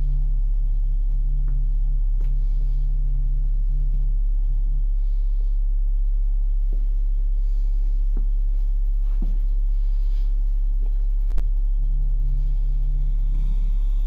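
A loud, steady, very low drone, with a second, somewhat higher hum that drops out about five seconds in and returns near the end, and a few faint clicks.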